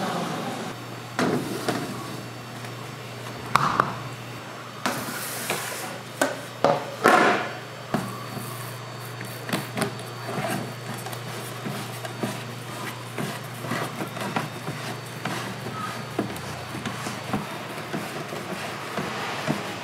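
Kitchen handling sounds as pizza dough is stretched and folded by hand on stacked metal pizza pans: scattered knocks, taps and rustles, the loudest a few seconds in, over a steady low hum.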